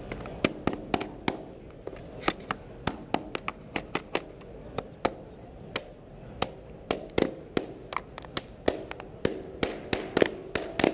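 Claw hammer driving nails by hand into hardwood strip flooring: several dozen sharp strikes in quick runs, with short pauses between runs.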